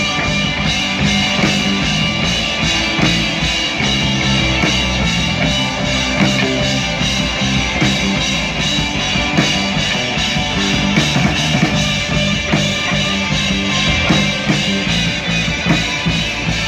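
Live band playing amplified music through PA speakers, with drum kit and guitar keeping a steady beat.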